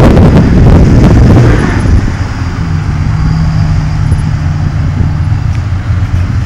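Car engine running: a loud rushing noise dies down about a second and a half in, leaving a steady low idle.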